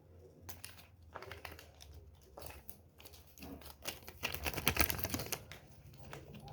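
Crinkling and rustling handling noise with scattered clicks, busiest and loudest about four to five seconds in.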